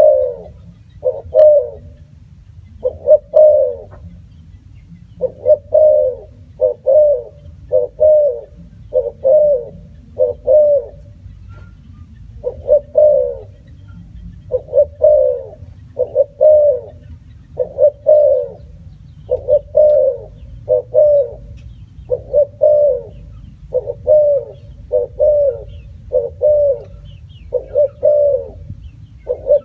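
Spotted dove cooing: a long series of short coos, about one a second, broken by a few short pauses.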